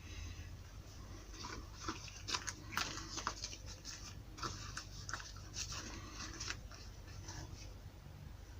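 Shoe repair handwork: light, irregular clicks and scrapes over a steady low hum.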